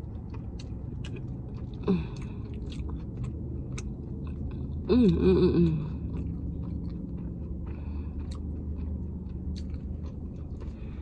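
Close-up chewing of a mouthful of fried chicken tender, with many small wet mouth clicks. A short wavering 'mm' of enjoyment about five seconds in.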